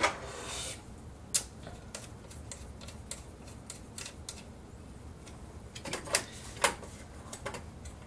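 Scattered light clicks and taps, a handful spread over several seconds, as small CPU-cooler mounting parts (posts, bracket and thumb screws) are handled and fitted around the motherboard's CPU socket.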